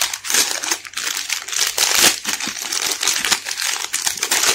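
Thin clear plastic packaging bag crinkling as it is crumpled and pulled open by hand: a dense, unbroken crackle.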